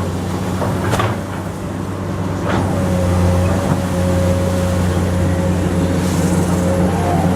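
Komatsu PC200 hydraulic excavator working: its diesel engine runs steadily under load. A hydraulic whine holds from about three seconds in until near the end, and there are two sharp clanks in the first few seconds.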